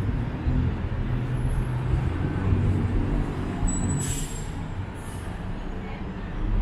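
Road traffic noise: a steady low rumble of vehicles, with two short hisses about four and five seconds in.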